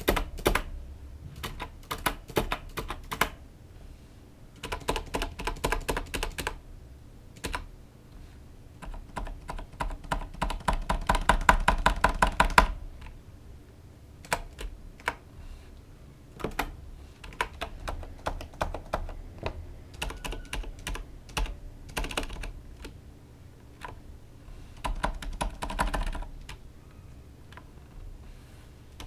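Corsair Strafe RGB mechanical keyboard with Cherry MX Silent (dampened linear) switches being typed on. Bursts of keystrokes come with short pauses between them, and there is a fast, dense run of presses from about nine to thirteen seconds in.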